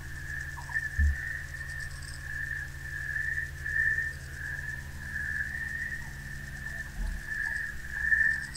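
Ambient soundscape composition: a steady high whistle-like tone that swells and fades slightly, over a low steady hum, with faint rapid ticking high above. Two soft low thumps come about a second in and about seven seconds in.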